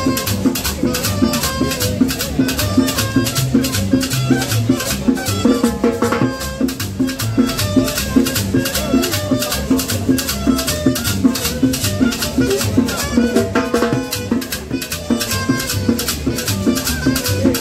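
Live street band playing up-tempo dance music: conga and timbal drums with a fast, steady high rattle over them and a melody line that runs without a break.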